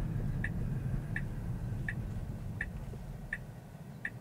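Car's turn-signal indicator ticking steadily, about one tick every 0.7 seconds, over low road rumble inside the cabin that fades as the car slows for the stop sign.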